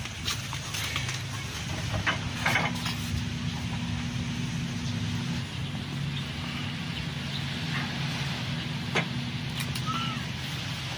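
An engine running steadily at an even, low speed, with a few short knocks over it, one about two and a half seconds in and another about nine seconds in.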